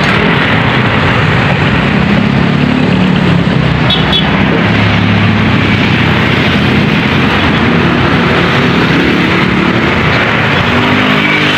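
Highway traffic going by: motorcycles and cars passing with engines running and tyre noise, a steady loud rush with engine notes rising and fading as each vehicle passes.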